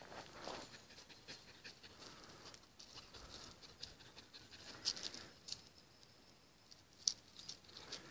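Faint sniffing and paw steps of a hunting dog working a scent with its nose to the ground, its feet scuffing dry gravel and twigs with scattered small crackles. Two sharper clicks come about five and seven seconds in.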